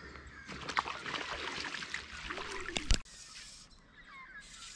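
River water splashing and trickling as a brown trout is released by hand back into the river, ending in a sharp knock about three seconds in, after which only faint water hiss remains.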